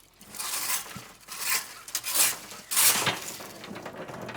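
A rake dragged through dry leaves and hickory nuts in several quick scraping strokes, roughly one every half second to second.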